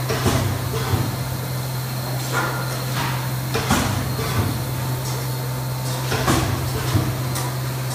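Steady low hum from the cleanroom air shower's machinery, with eight or so short knocks and clatters of hands working at its open metal electrical control box.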